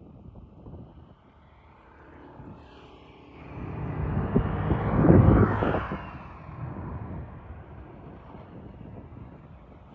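A motor vehicle passing by: its sound swells over a couple of seconds, peaks about five seconds in, and fades away.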